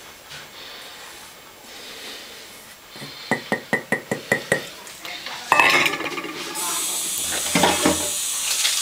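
A utensil scraping flour out of a stainless-steel mixing bowl, then about eight quick taps of the utensil against the metal bowl, each with a short ring, to knock the flour off. A rustling hiss follows in the last few seconds.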